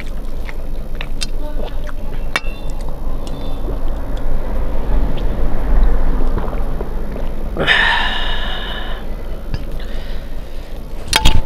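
Close-miked eating by hand: fingers mixing rice and dal on a steel plate, with scattered wet clicks and mouth sounds. A steel tumbler is drunk from, a short vocal sound from the eater follows about eight seconds in, and a sharp knock with a brief ring comes near the end.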